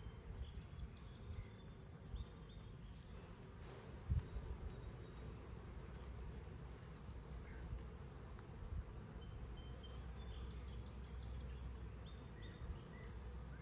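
Honeybees buzzing around an open hive while frames of comb are lifted out, over a steady high-pitched insect chorus. A single soft knock about four seconds in.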